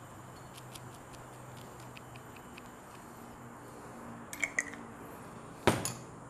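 Faint scattered clicks as a chili sauce bottle is held upside down and shaken over a bowl, then a few light taps and one loud knock near the end as the bottle is set down on the table.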